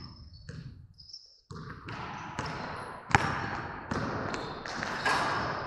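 A run of sharp thumps and knocks at irregular spacing, the loudest about three seconds in, over a steady background noise.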